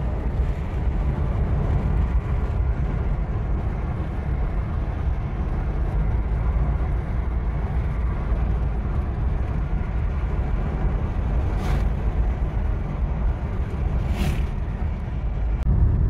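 Steady low rumble of a moving car: engine and road noise, with two short hisses near the end.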